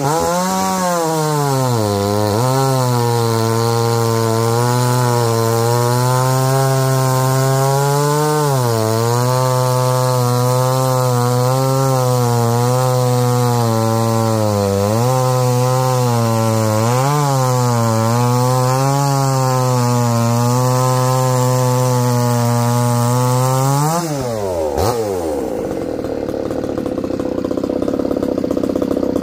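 Supmix two-stroke chainsaw with a 48 mm big-bore cylinder kit (about 61.5 cc) running at full throttle through a thick log, cutting off a round. Its pitch dips briefly now and then as the chain loads up in the cut. About 24 seconds in, the throttle is released and it drops to idle.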